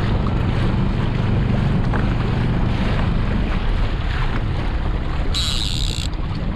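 Small skiff's outboard motor running at trolling speed, with wind buffeting the microphone and water rushing past the hull. The low engine hum eases about three and a half seconds in, and a brief high hiss comes near the end.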